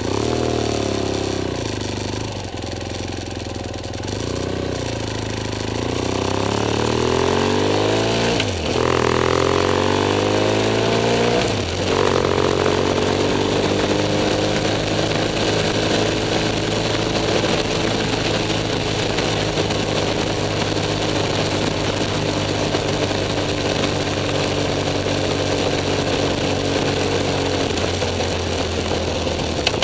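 BMW F 800 S parallel-twin engine pulling away from a stop: the engine note climbs, drops at gear changes about 9 and 12 seconds in, then runs steadily at cruising speed.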